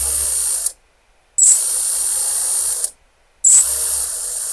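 Four brushless motors of an FPV racing quadcopter, propellers off and small tape flags on the shafts, spun up together from the ESCs just calibrated. They run in three short bursts of about a second and a half each, a high hissing whir that starts and stops abruptly, all four starting at the same time.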